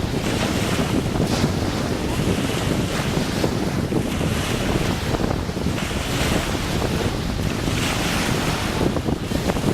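Sea waves washing in, a hiss that swells and fades about every two seconds, under heavy wind buffeting the microphone with a constant low rumble.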